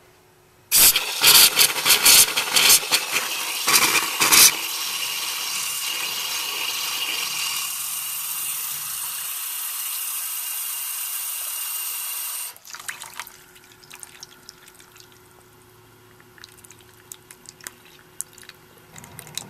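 Tap water running into a sink and splashing over a metal fork being rinsed, loud and uneven with sharp splashes and clatters for the first few seconds, then a steady stream. The flow stops suddenly about twelve seconds in, leaving only faint drips and small ticks.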